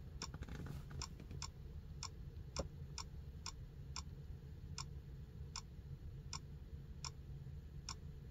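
Faint, sharp ticks, about two a second at slightly uneven spacing, over a low steady hum, as trouble codes are cleared from the truck's control modules one by one.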